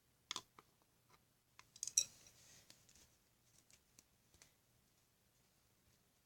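Small clicks and taps of slime-making supplies being handled and set down, with a louder clatter about two seconds in.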